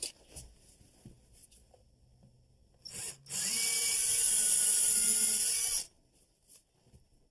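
Cordless drill boring a hole into a drywall kitchen wall: a short burst about three seconds in, then a steady whine for about two and a half seconds that stops suddenly.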